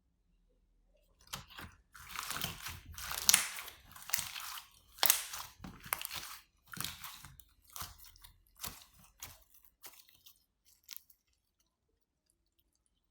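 Slime being squeezed and mixed by hand, giving a run of irregular crackly, crunchy sounds that starts about a second in and dies away near the end.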